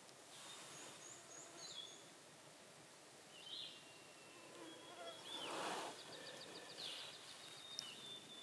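Songbirds chirping and singing, with a thin, high, steady trill running through the second half. A brief soft whoosh of noise about five and a half seconds in is the loudest sound.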